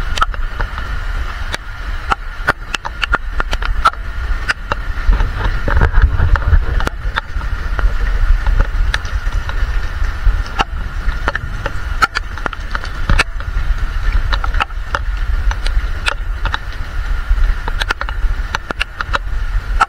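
Rain and wind noise on a handheld camera's microphone: a steady low rumble with many scattered sharp clicks.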